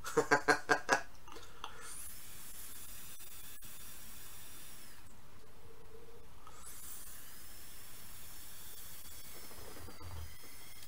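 Faint hiss of air and vapour drawn through a Kayfun 3.1 clone rebuildable tank atomizer as its coil fires, in two drags of a few seconds each with a short pause between. A single sharp click about three and a half seconds in.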